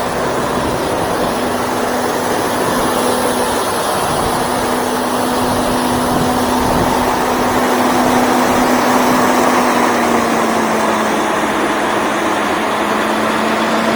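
Freightliner semi truck's diesel engine idling steadily just after start-up, its pitch dropping slightly about ten seconds in.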